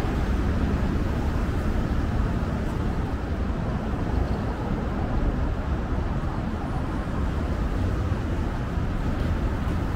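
Steady road traffic noise from a busy city road: a continuous low rumble of passing vehicles with no single vehicle standing out.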